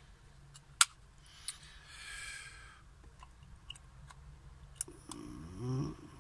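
Sharp plastic clicks and handling noise as a capacitor's leads are fitted into the ZIF socket of a small LCD component tester, the loudest click a little under a second in. A brief hummed voice sound near the end.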